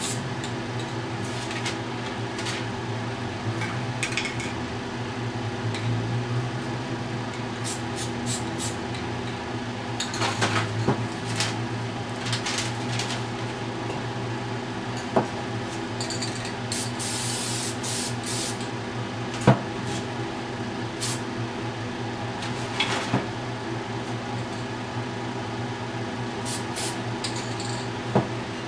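Aerosol spray paint cans hissing in many short bursts, with one longer spray a little past the middle, over a steady low hum. A few sharp knocks stand out, the loudest about two-thirds of the way through.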